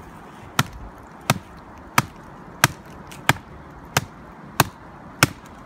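Wooden baton striking the spine of a TOPS Bushcraft Kukri knife, driving the blade into a round of very hard, seasoned timber: eight sharp wooden knocks at a steady pace, about one and a half a second. The blade is hard to get into the wood.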